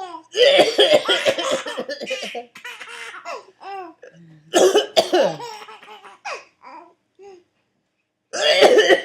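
A man coughing in three loud fits, about a second in, about halfway and near the end. Between and under the coughs a baby laughs in short, high-pitched bursts.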